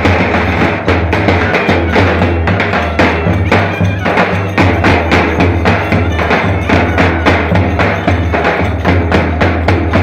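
Lively Turkish köçek dance music with a davul drum beat, layered with fast, sharp wooden-sounding clicks in a steady rhythm over a constant low drone.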